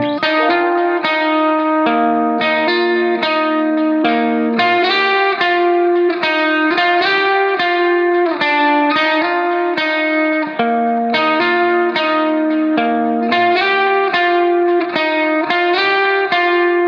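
Background music: a guitar tune of plucked notes that keeps a steady pace.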